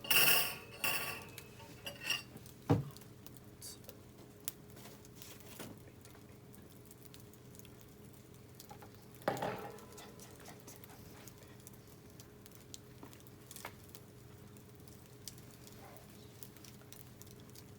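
Metal clinks and knocks as tin cans and cooking utensils are handled by a wood fire: a ringing cluster of clinks at the start, a hard knock a couple of seconds in and another about nine seconds in, with faint scattered crackles between.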